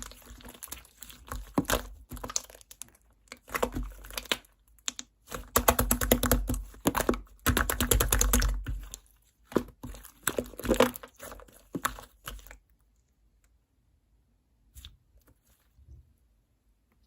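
Chocolate fondue slime being squeezed and stretched by hand, giving a dense run of crackling clicks and squishes. Near the end it drops to near quiet with only a few faint ticks.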